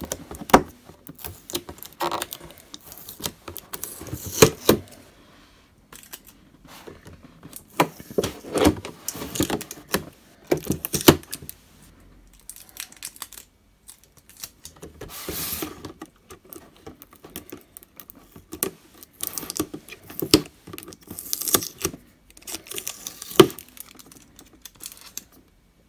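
Fingernails picking and scratching at stickers on a thin clear plastic box and peeling them off, with irregular clicks, scratches and crinkles of the plastic and a few quiet pauses.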